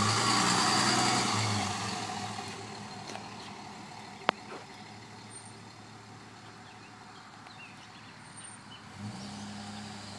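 Dodge Cummins inline-six turbodiesel pulling away with a high whistle from its open turbo, loud at first and fading over about two seconds as it leaves. A sharp short chirp follows a couple of seconds later, and a steady low engine hum comes in near the end.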